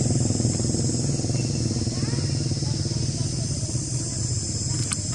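Constant high insect drone with a steady low rumble underneath, and a couple of faint clicks near the end.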